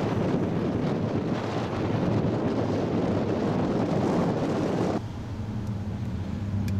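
Wind buffeting the microphone, a dense rough rumble, which cuts off abruptly about five seconds in. A quieter, steady low vehicle hum follows.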